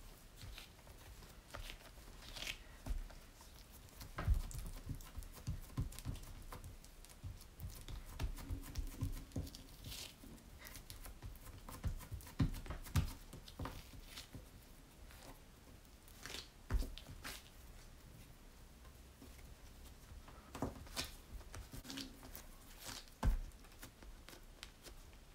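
Hands working soft dough on a silicone pastry mat: irregular sticky squishes, light pats and rustles as the dough roll is twisted and coiled, with a few dull thumps as it is pressed down.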